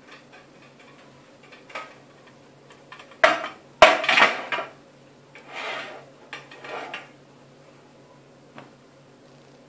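Metal baking tray with a wire rack set down on a marble countertop: two sharp clanks about three seconds in, then a burst of metallic clattering and rattling, with a few lighter rattles a couple of seconds later as the tray is handled with a towel.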